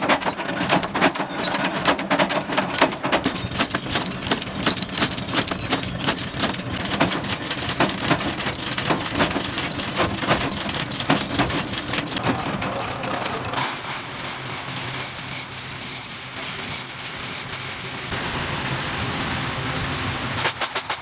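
Metal-stamping presses clattering with rapid, uneven metal knocks as they form metal bulb-holder caps. About two-thirds in a steady high hiss joins the machine noise, and near the end the knocking thins out into a rougher mechanical din.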